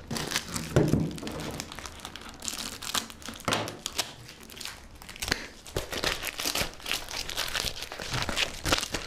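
Clear plastic wrapping and tape on a parcel crinkling and tearing as it is pulled open by hand, in a steady run of irregular crackles.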